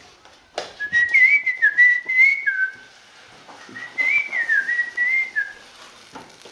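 A man whistling a short tune with his lips, in two phrases of quick, wavering notes: one starting about a second in, the second about four seconds in.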